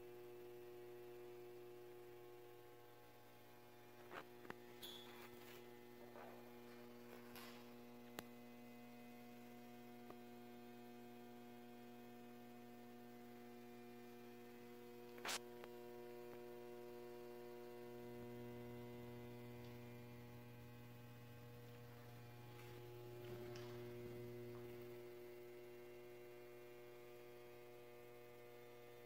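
Near silence apart from a faint, steady electrical mains hum, with a few small clicks, the sharpest about halfway through.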